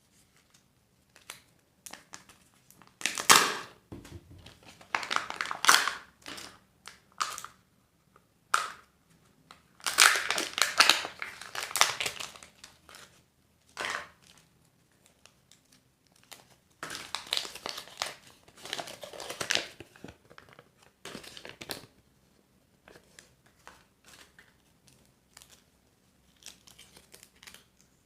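Plastic and foil wrappers of surprise eggs and candies being crinkled and torn open by hand, in several bouts of a second or two with short pauses between them.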